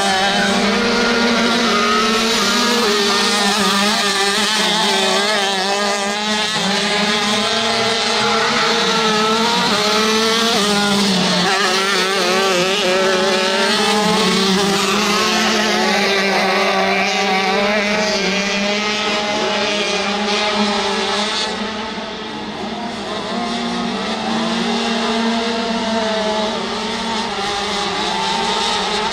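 Crosskart racing engines at high revs, several karts at once, the pitch rising and falling as they brake, corner and accelerate.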